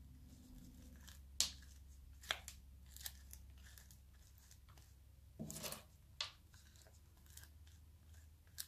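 Wooden spoon scooping and pressing sticky chocolate-coated cornflakes into a small glass bowl: faint crisp crackling of the flakes with a few scattered taps and clicks, the loudest a little past the middle.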